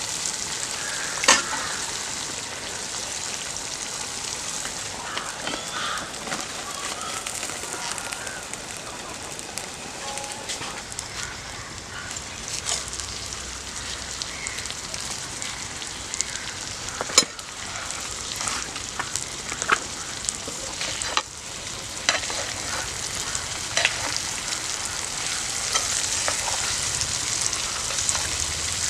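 Food sizzling as it fries in a pan, with a spoon stirring and scraping against the pan and sharp knocks now and then. The loudest knocks come about a second in and a little past the middle.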